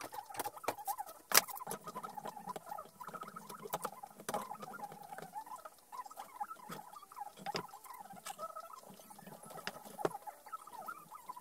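Metal bar clamps and screw clamps being handled on a wooden workbench: irregular clicks and knocks, with small squeaks mixed in. One sharp knock, the loudest, comes about a second and a half in.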